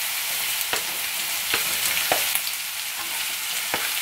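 Ground beef sizzling steadily in a skillet, with a spatula scraping and knocking a few times as spinach and cubed Swiss cheese are pushed off a wooden cutting board into the pan.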